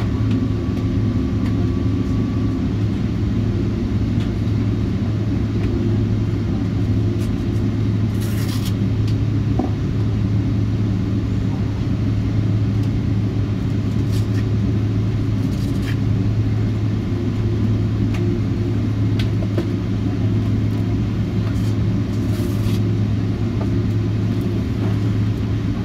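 Cabin noise of a Boeing 777-200ER taxiing after landing: a steady low rumble and engine hum at idle, with a few faint clicks and rattles from the cabin.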